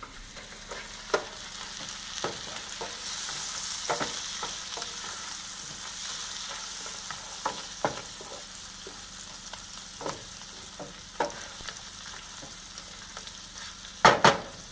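Shell-on lobster tail pieces sizzling in butter with shallots and garlic in a sauté pan, with a wooden spatula scraping and clicking against the pan as they are stirred. The sizzle grows louder about three seconds in, and a few sharper knocks of the spatula come near the end.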